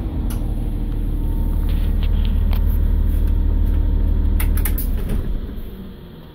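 Solaris Urbino 8 midibus's 6.7-litre diesel engine idling steadily after a rev, with a few clicks in the cab, then the engine sound dies away about five seconds in.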